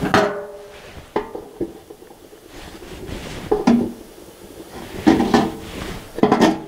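Metal clanks with short ringing, several separate knocks: a steel quench can's foot-pedal lid opening and tongs knocking against the can as a red-hot Pulaski head is dipped into quenching oil.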